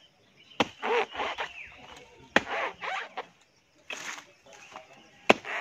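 Hand tool chopping into the fibrous crown of a felled coconut palm to cut out the palm heart: about four sharp strikes, roughly one every second and a half.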